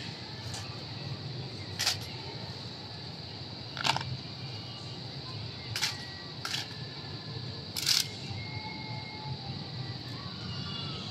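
Six sharp cracks from a Marine silent drill platoon's rifle handling and heel stomps, most of them about two seconds apart.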